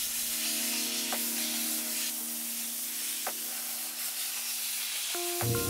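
Steady hiss of a dry ice blasting nozzle as it cleans an engine bay, over background music with sustained notes that change near the end.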